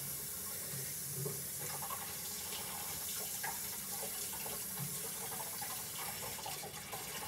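Kitchen faucet running steadily into the sink as paintbrushes are rinsed under the stream, with a few light knocks of brushes against the sink.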